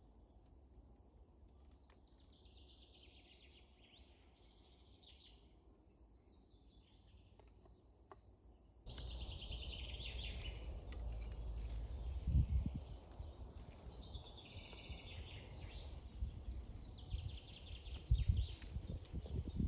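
Small songbirds singing repeated trilling songs. About nine seconds in, the background abruptly gets louder with a low rumble, and two dull thumps come a few seconds apart.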